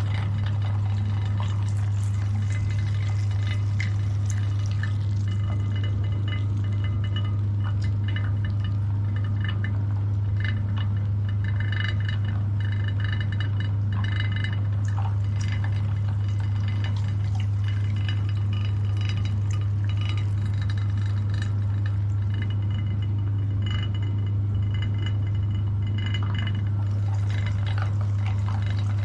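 Electric meat grinder running with a steady low hum, with irregular clicks and clinks as pieces of chocolate bars and ice cream cones go through it.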